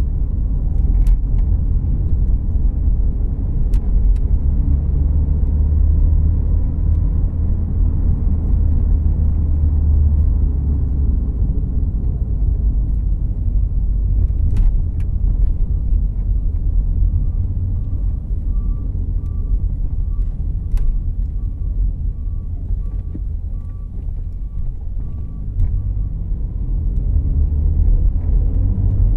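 Cabin noise inside a moving 2014 Volkswagen Jetta Clásico: a low engine and road rumble that eases off through the middle and builds again near the end. A few sharp clicks come through, and a faint regular pulsing tone repeats for several seconds past the middle.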